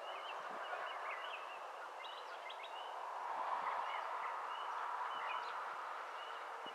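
Dusk outdoor ambience: many short, high chirps and calls from birds scattered throughout, over a steady hiss that swells a little in the middle.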